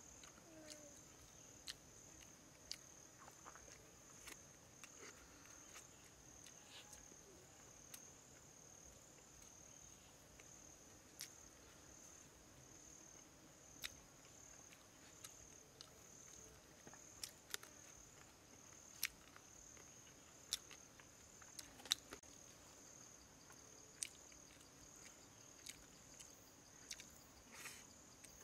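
Insects buzzing steadily at a high pitch, with irregular sharp clicks and smacks of someone eating chicken and rice with his hands and mouth.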